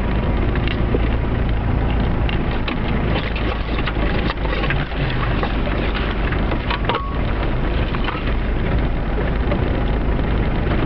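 Land Rover Discovery 300Tdi driving slowly through snow, heard from inside the cab: its 2.5-litre four-cylinder turbodiesel running steadily under the tyre and body noise, with many small clicks and knocks, the sharpest about four seconds in and again about seven seconds in.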